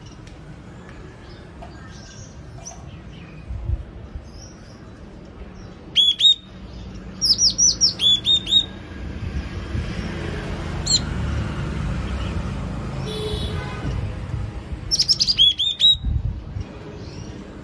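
Yellow-cheeked tit calling in short bouts of quick, high, down-slurred notes: about six seconds in, again a second later, and once more near the end.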